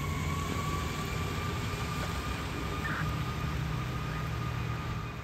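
Fire apparatus siren sounding one long, nearly steady tone, with a low engine rumble from waiting traffic and a steady hiss under it.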